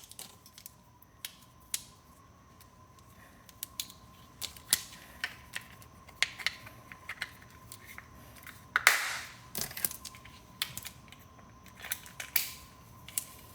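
Scattered light clicks and taps of small objects being handled, with a short rustle about nine seconds in, over a faint steady thin tone.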